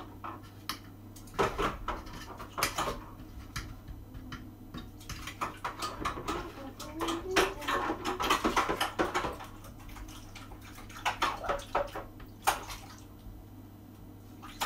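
Dishes and cutlery clinking and clattering irregularly during washing up at a kitchen sink, with water running at times.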